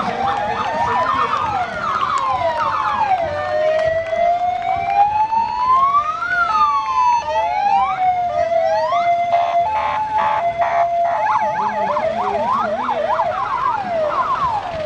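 Several sirens from the race convoy's escort vehicles sound at once, in overlapping slow wails that rise and fall. About two-thirds of the way through they switch to a two-tone hi-lo pattern, then to quick yelps near the end.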